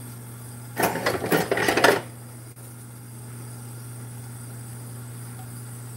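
A metal spoon clinks and scrapes for about a second, starting about a second in, as a scoop of solid vegetable shortening is dug out for the skillet. A steady low hum sits underneath.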